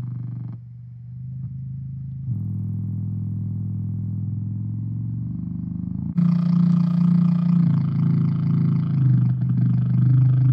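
Low-pitch drone synthesizer ('dragon box') heard through an amplifier, making a low growling drone that steps to new pitches and tones. About six seconds in it turns suddenly louder and much brighter and harsher.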